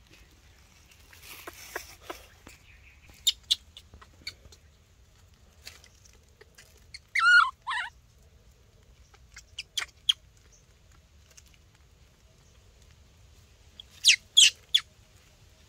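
Baby macaque giving one loud, falling squeal about halfway through, with short sharp squeaks or clicks scattered before and after and a quick cluster of them near the end.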